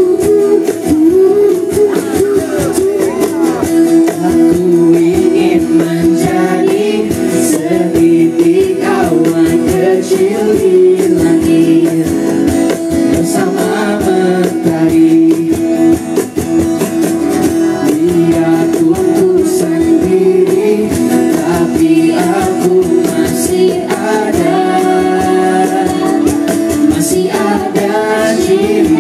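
A song with guitar accompaniment and a female voice singing an Indonesian melody.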